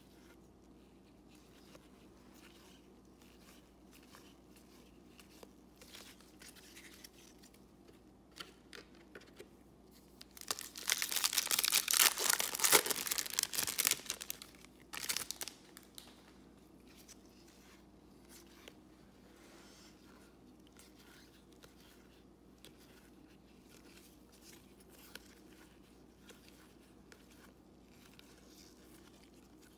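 A Topps Series 1 trading-card pack wrapper torn open and crinkled in the hands, making a loud crackling burst of about four seconds in the middle, with a few sharp crinkles just after. Otherwise there are only faint clicks and rustles of cards being shuffled through by hand.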